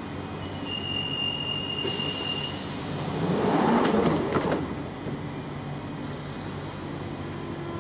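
London Underground 1992 tube stock train at a platform: a steady high warning tone sounds for about two seconds, then the sliding doors close with a rush of noise. Near the end a low motor whine starts as the train begins to move off.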